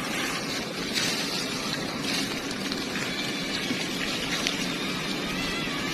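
Steady rush of water from a hose spraying onto a heap of freshly caught shrimp and leaf litter.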